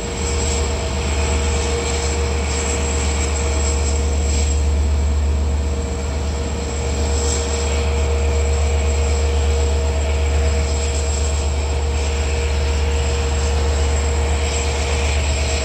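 Long Island Rail Road diesel locomotive idling steadily, a low drone with a steady high whine above it.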